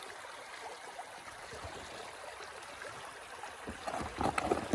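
Stream running water with a steady hiss, joined near the end by a short run of knocks and rustles.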